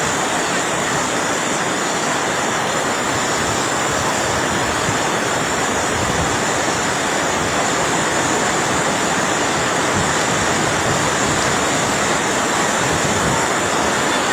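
Heavy rain falling steadily as a constant loud hiss.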